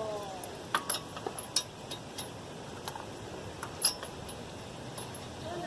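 Scattered light metallic clicks and clinks from lug nuts and hand tools being handled as a wheel is refitted, a few sharp ticks at irregular intervals.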